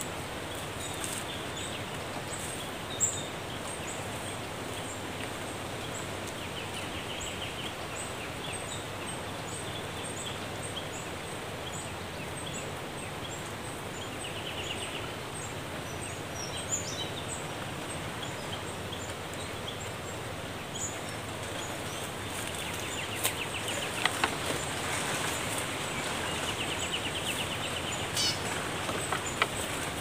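Steady outdoor background noise with small birds chirping and giving short rattling trills now and then. Later on, a few sharp snaps and rustles of twigs as branches are handled.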